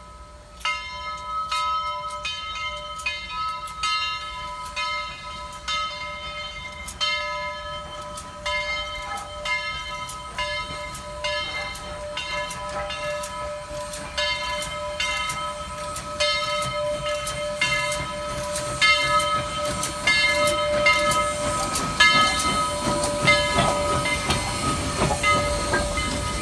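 A railroad bell ringing steadily, about two strikes a second, as a train's rumble grows louder over the last several seconds; the bell stops a couple of seconds before the end.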